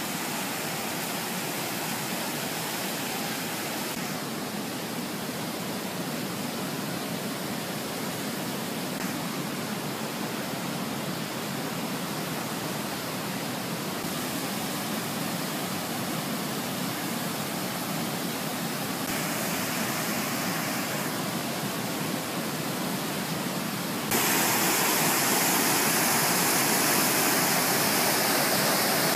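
Niagara River rapids rushing in a steady roar of whitewater, stepping up louder near the end where the churning water is close by.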